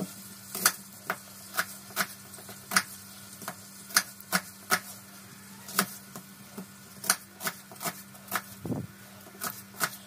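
Kitchen knife cutting onions into large wedges on a plastic cutting board: sharp, irregular knocks of the blade on the board, about two a second, over a faint steady hum.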